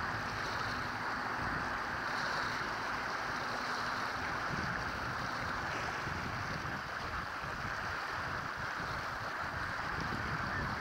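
Wind buffeting the microphone in uneven gusts over the steady wash of choppy water on the shore.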